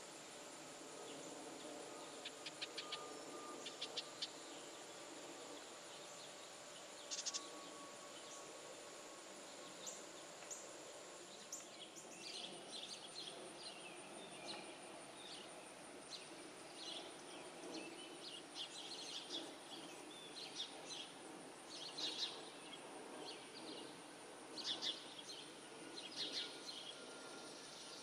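Faint outdoor ambience: small birds giving short, high chirps, a few at first and more often from about halfway, over a steady high insect drone.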